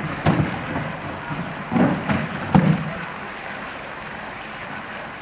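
Water sloshing and splashing in a concrete pool as a polar bear paws at a white plastic polyethylene tank, with hollow knocks of the tank against the pool edge. The knocks and splashes cluster in the first three seconds, then only a steady slosh remains.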